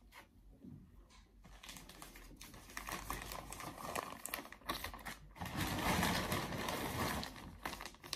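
Plastic packaging bag crinkling and rustling in the hands as it is handled and opened. It builds up after about a second and a half and is loudest in the middle.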